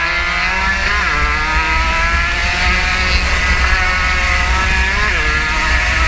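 Onboard sound of a 115cc racing motorcycle engine held at high revs. Its pitch dips and climbs back twice, about a second in and again near the end, as the throttle is eased and reopened through the bends, over a low rumble of wind on the microphone.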